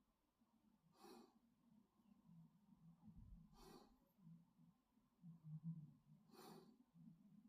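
Faint breathing through the nose, three soft breaths about two and a half seconds apart, sniffly from a head cold.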